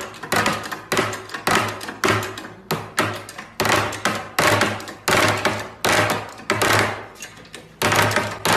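A steady series of sharp knocks, about two a second, each dying away in a short ringing tail.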